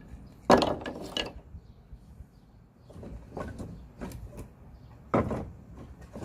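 Pieces of oak firewood knocking against each other as they are handled. There is a loud clunk about half a second in, then a scatter of lighter knocks and scrapes, and another clunk near the end.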